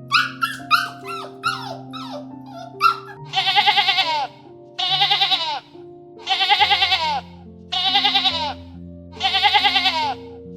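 A dog yelping in short, high calls that fall in pitch over the first three seconds, then a goat bleating five times, each quavering bleat lasting about a second, over background music.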